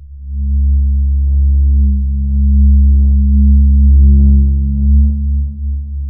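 Horror-film ambience sound effect: a loud, deep, sustained drone of several low steady tones that swells up just after the start, with faint short flickers of higher sound scattered over it.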